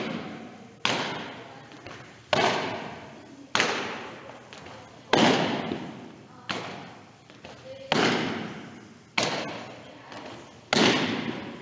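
Softball smacking into leather fielding gloves as two players throw it back and forth: eight sharp catches, one about every second and a half, each ringing on in the echo of a gymnasium.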